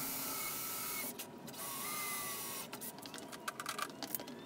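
Handheld electric drill with a 1/8-inch (3.18 mm) bit drilling into an aluminium bracket. It runs in two bursts of about a second each with a short break between, the motor giving a steady whine, then stops, and a few light knocks follow.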